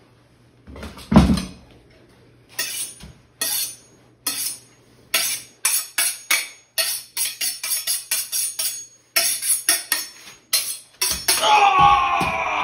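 Kitchen knife being honed on a sharpening steel: a run of quick metal-on-metal scraping strokes, slow at first and then about three a second. There is a low thump about a second in, and background music comes in near the end.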